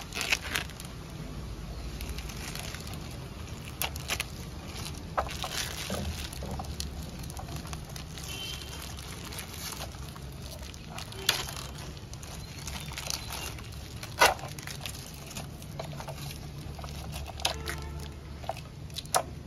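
Clear plastic wrap crinkling and crackling as it is peeled and torn off a new skateboard, in scattered crackles with a few sharper snaps, over a low steady hum.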